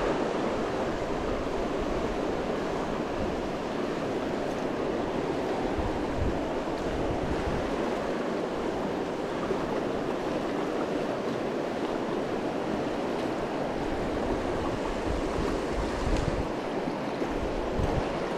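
Fast, shallow river rushing over rocks in riffles: a steady, even rush of water, with a couple of brief low bumps about six and sixteen seconds in.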